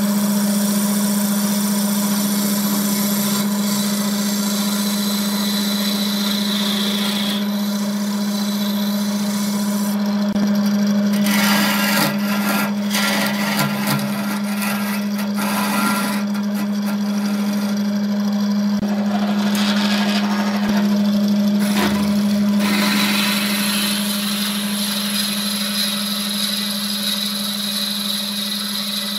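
Wood lathe running with a steady hum while a hand-held turning chisel cuts the spinning workpiece. The cutting gets louder and more scraping from about a third of the way in to about three quarters, then eases back to the steady hum.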